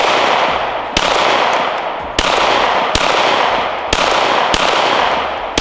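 Semi-automatic pistol firing a string of about seven shots, spaced roughly half a second to a second apart, each crack followed by a long echo that rings on until the next shot.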